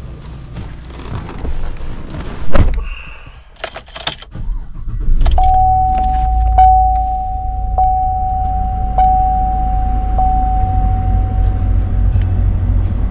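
Car interior sounds: keys and small clicks, a door shutting hard about two and a half seconds in, then the engine running with a low steady rumble from about five seconds in. Over the engine a steady electronic warning chime with a tick about every second sounds for around six seconds, then stops.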